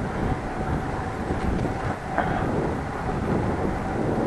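Steady rumble of a bicycle being ridden: tyre and road noise with wind on the microphone, plus a faint steady whine.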